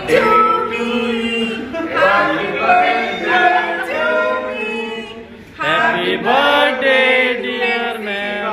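Several voices singing together without instruments, a choir-like sound, with a short break about five seconds in before the singing picks up again.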